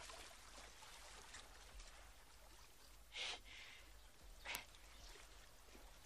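Near silence: a faint steady hiss, broken by two short breathy noises, one about three seconds in and a sharper one about a second and a half later.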